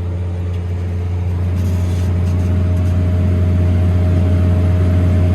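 New Holland T7040 tractor's six-cylinder diesel running steadily under load, pulling a McHale F550 round baler that is taking in haylage. A steady whine joins about a second and a half in, and the sound grows slightly louder.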